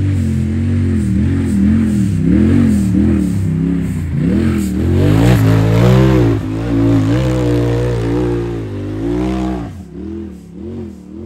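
Side-by-side UTV engine revving loud on a hill climb, its pitch rising and falling repeatedly with the throttle, then dropping away sharply near the end.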